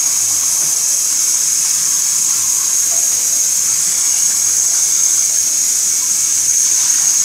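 Handheld shower sprayer running into a bathtub: a steady hiss of water spray.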